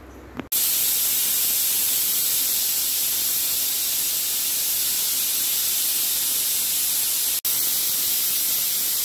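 Aluminium pressure cooker whistling: steam hissing loudly and steadily out from under the weight valve, starting suddenly about half a second in, with a split-second break near the end.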